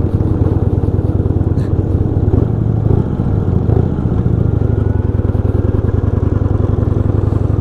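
Motorcycle engine running steadily and loudly close by, its firing pulses unbroken and even.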